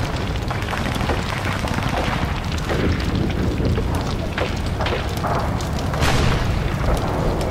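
Steady low rumble of wind buffeting the microphone, with a few short, sharp knocks in the second half.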